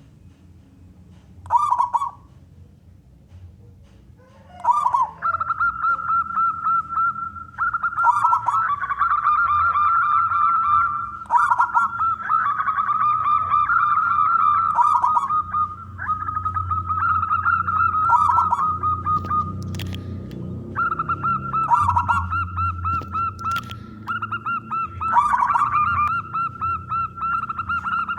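Local zebra dove (perkutut) singing: two short coos, then from about five seconds in a near-continuous run of rolling, trilled cooing phrases, broken by a brief pause about two-thirds of the way through.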